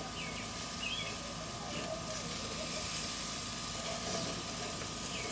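Sugar-marinated pork chops sizzling on a barbecue grill, a steady hiss, with a few short bird chirps over it.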